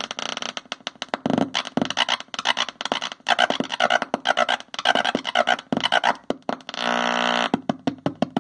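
Handmade 9-volt noise synthesizer with body-contact oscillators sputtering in choppy, stuttering buzzes and squeals as fingers touch and release its metal contacts. Near the end it holds a steadier buzzing tone.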